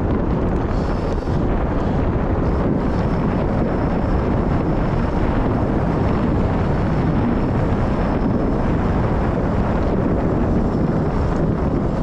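Wind buffeting the microphone of a bike-mounted camera while riding at speed on a paved road: a steady, loud rushing noise with no breaks.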